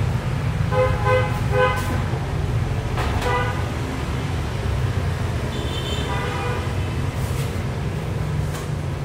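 Steady rumble of street traffic with vehicle horns honking: three short toots about a second in, another near three seconds, and a higher-pitched honk around six seconds. A few sharp clinks are also heard.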